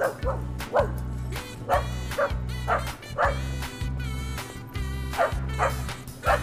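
A dog giving about ten short, high yips and barks, each dropping in pitch, over background music with a steady bouncing beat.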